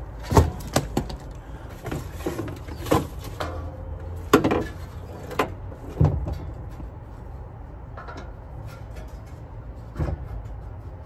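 Scattered knocks and clinks of metal parts being handled as a new condenser fan blade is fitted onto its motor, over a steady low rumble.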